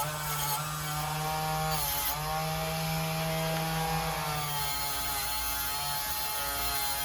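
Small handheld power tool's motor running steadily, its pitch dipping and recovering as it is loaded against the work.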